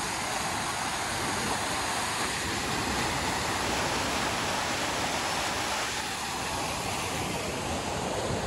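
Fast-flowing stream rushing and cascading over the steps of a concrete channel: a steady, unbroken rush of water.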